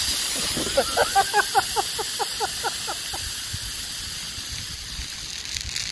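Coke and Mentos geyser erupting: a sudden loud hiss of soda spraying from the bottle, fading steadily. The sound comes from the explosive release of carbon dioxide from the soda. About a second in, a rapid run of short pitched notes sounds over the hiss for about two seconds.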